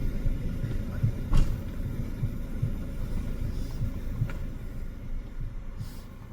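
Car driving on the road, heard from inside the cabin: a steady low rumble with uneven low thumps, and a couple of faint ticks.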